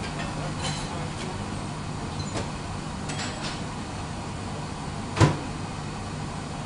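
A low steady hum with a few faint clicks, then one sharp, loud thump about five seconds in.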